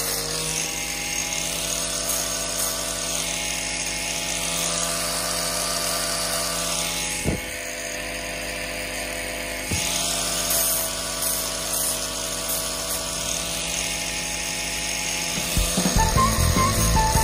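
Angle grinder with a sanding disc running steadily with a high motor whine as it sands a wooden knife handle, under background music. There is a louder burst of sound near the end.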